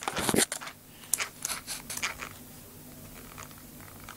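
Small plastic parts of a remote-control car's drivetrain clicking and scraping as it is turned by hand to test a rebuilt differential. There is a scratchy burst at the start and a run of sharp clicks over the next couple of seconds. After that only a faint steady hum remains.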